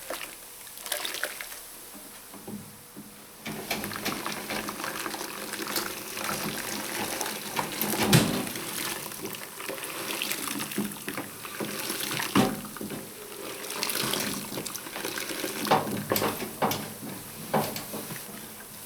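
Water pouring and splashing as wet laundry is fed through the rollers of a 1960s Hoover 0321 wringer washing machine, with scattered knocks, the loudest about 8 and 12 seconds in.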